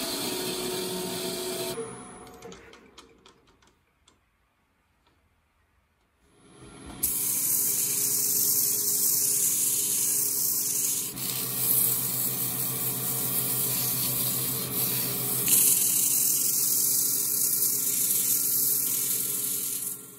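Wood lathe running with abrasive paper held against the spinning apple-wood goblet stem: a steady hiss over the lathe motor's hum. The sound dies away about two seconds in, is near silent for a few seconds, and the sanding starts again about seven seconds in and runs steadily.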